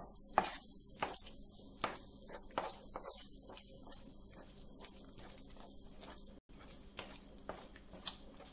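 Wooden spatula stirring thick rava kesari in a non-stick pan: soft squelching of the semolina pudding with irregular taps of the spatula against the pan, over a faint sizzle of ghee.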